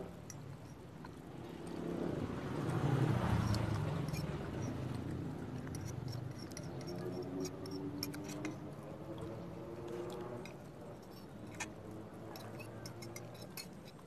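A metal spoon clinking and scraping against a ceramic plate while noodles are eaten, in scattered sharp clicks that come more often near the end. Underneath runs a low rumble that swells about two to four seconds in.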